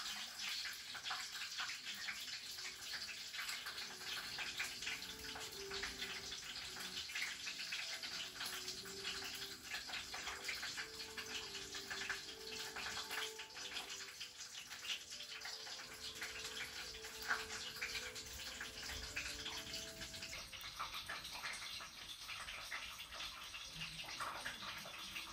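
Freshly broiled fish sizzling in its foil wrap: a steady, fine crackling hiss with many tiny pops.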